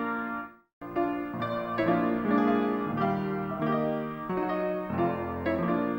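Instrumental piano music, a melody of sustained notes over chords. It cuts out completely for a split second about half a second in, then carries on.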